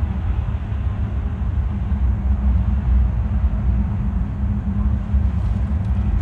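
Steady low rumble of a freight train's diesel locomotives.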